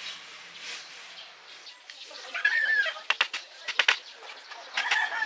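Claw hammer tapping a nail into the wooden frame, a quick run of about six light strikes a little past halfway. A bird calls twice, once just before the strikes and again near the end.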